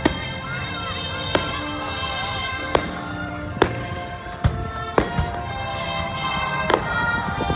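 Aerial fireworks shells bursting overhead, a sharp bang about every second.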